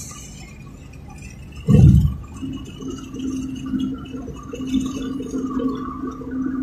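Low rumble of a moving car, with a single heavy thump about two seconds in, then a steady low hum that wavers in level.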